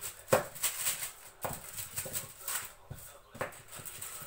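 A plastic rolling pin works almond paste flat on a plastic sheet over a table, giving a string of irregular sharp knocks and rustles. The loudest knock comes about a third of a second in.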